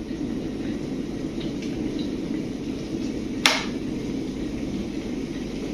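Water at a rolling boil in a Scarlet 2-litre electric kettle, a steady low bubbling rumble. About three and a half seconds in, one sharp click: the kettle's automatic cut-off switching it off at the boil.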